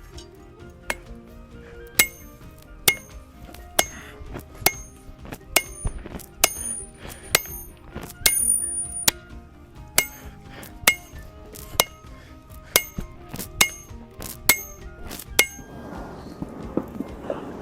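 Hand hammer striking a hot steel axe billet on the anvil at a steady pace of about one blow a second, each with a bright metallic ring, some fifteen strikes in all, then stopping. A rushing noise follows near the end.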